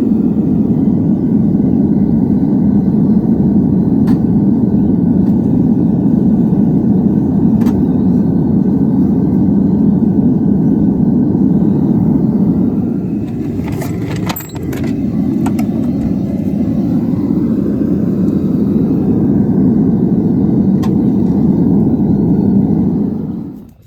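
Propane metal-melting furnace burner running steadily with a loud, low rushing noise; about 14 seconds in it dips briefly under a few sharp metallic clicks, and it cuts off just before the end.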